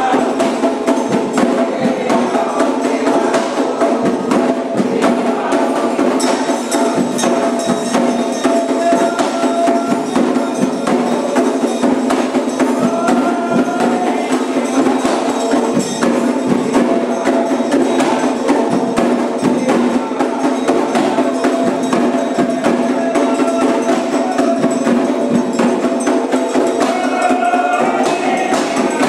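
Candomblé ritual music: drums and a struck bell keep up a dense, steady rhythm.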